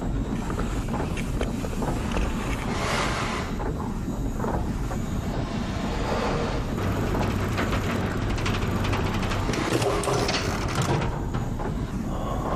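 Old machinery rumbling steadily, with scattered clicks and metallic clatters that cluster a little after the middle, and a low hum joining for a few seconds in the middle.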